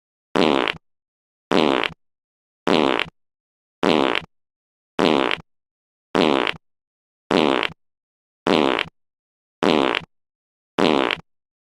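A fart sound effect played on a loop: the same short, pitched burst repeats about ten times, a little over a second apart, with dead silence between each one.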